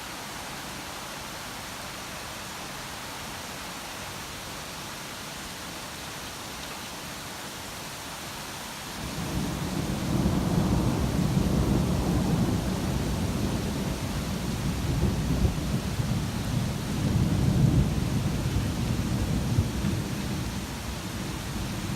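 Steady hiss of rain. About nine seconds in, a long low roll of thunder starts and keeps rumbling, swelling and easing, over the rain.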